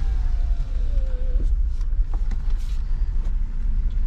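A vehicle's engine running with a low steady rumble. Over it, a thin whine falls in pitch and stops with a click about a second and a half in.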